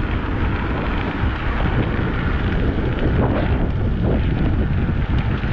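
Wind buffeting the microphone on an e-bike ride at about 20 miles an hour: a steady rushing noise, heaviest in the low end.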